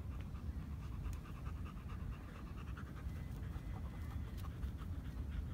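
Dogs panting steadily, tongues out after running, over a low rumble.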